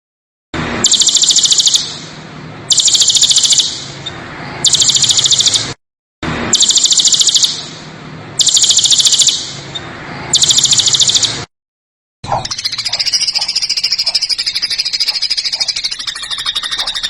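Recorded songbird calls used as masteran for training songbirds: a rough, rapid rattling call, high-pitched and about a second long, repeated every two seconds or so. After a short break about 12 seconds in, a continuous high chattering trill takes over.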